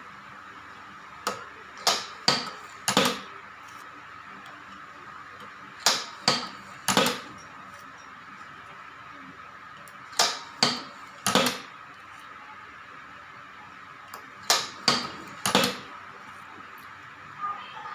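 Shuttlecock-making machine running through its work cycle: a group of three sharp mechanical clacks about every four seconds, over a steady high whine.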